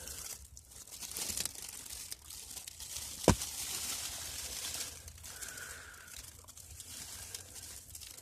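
Crunching and rustling of snow and winter clothing as someone moves around inside a snow-block igloo, with one sharp knock about three seconds in.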